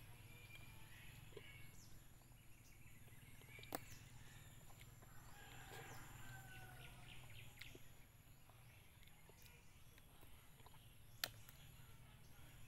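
Near silence: faint outdoor background with a low steady hum, a few faint bird chirps, and two soft clicks, one a little under four seconds in and one about eleven seconds in.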